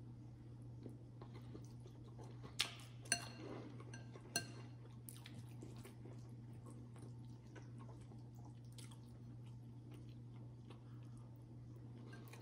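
A metal fork clinks against a glass bowl three times, between about two and a half and four and a half seconds in, each clink ringing briefly. Faint chewing comes in between, over a steady low hum.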